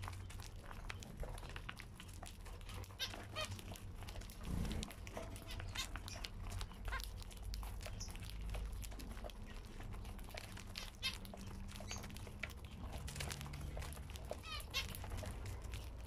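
Zebra finches calling in short bursts of notes while they peck at seed, with many small clicks of husks being cracked.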